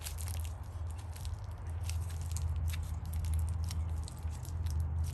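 Plastic wrap crinkling and rustling in irregular short crackles as it is wrapped around the soil ball of an air layer on a fruit-tree branch. A steady low hum runs underneath.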